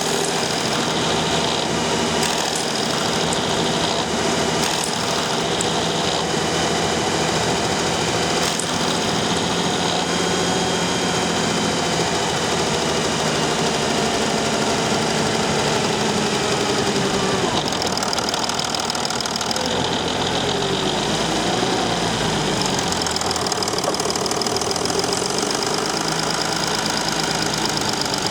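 Mercedes Sprinter 219 CDI V6 diesel engine running with the odd noise it makes only when fully warm, after throttle at low revs in 3rd and 4th gear; the owner first suspected the turbocharger. The engine note shifts in pitch about two-thirds of the way through.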